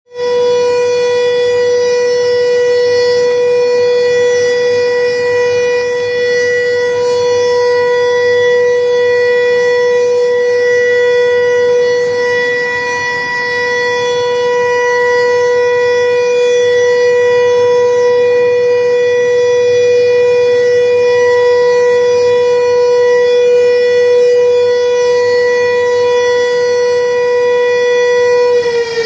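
The Pintu Air 10 floodgate siren sounding one loud, steady, unwavering tone, its pitch just beginning to fall near the end.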